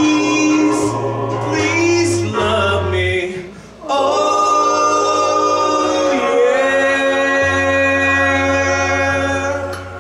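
A man singing into a microphone over recorded backing music, ending the song on one long held note of about six seconds that stops just before the end.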